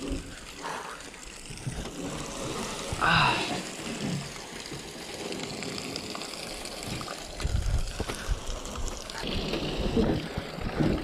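Lake water splashing and trickling around a jon boat as it is pushed off into the water, with a few dull knocks.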